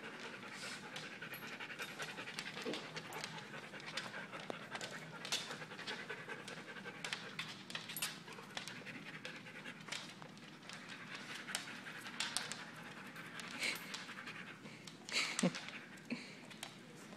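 Siberian huskies panting steadily, with scattered sharp clicks through it and a brief louder patch near the end.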